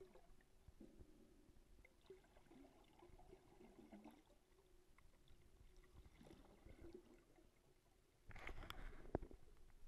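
Faint underwater crackle and ticks heard through a submerged camera, then, about eight seconds in, roughly a second of louder bubbling and splashing from a snorkeler at the surface.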